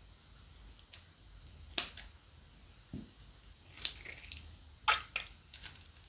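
Plastic glue bags being handled and snipped, with a scatter of sharp, crisp clicks and crinkles, the loudest a pair about two seconds in.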